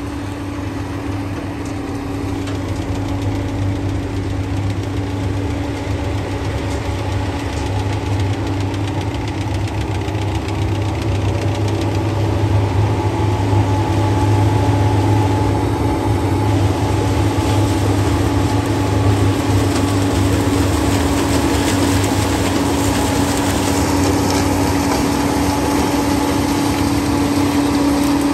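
Sugarcane harvester's diesel engine and cutting machinery running steadily under load as it cuts standing cane, a constant drone with a steady hum in it. It grows louder over the first half as the machine comes closer.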